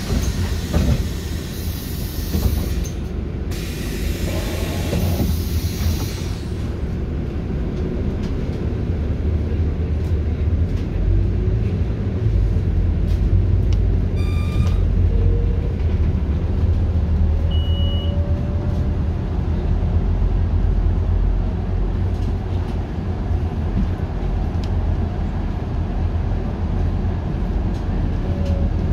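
Interior of a Scania GN 16 city bus: two bursts of hissing air from the bus's pneumatics in the first few seconds, then the diesel engine and drivetrain running steadily as the bus pulls away and drives on, with a faint rising whine and a short beep partway through.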